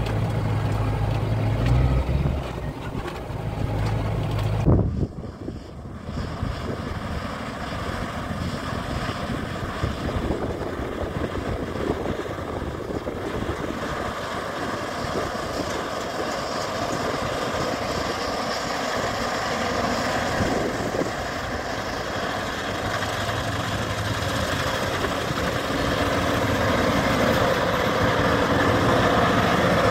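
New Holland combine harvester running as it harvests wheat: a steady mechanical drone that grows louder near the end as the machine passes close. In the first five seconds, before an abrupt change, the sound is a steadier low engine hum.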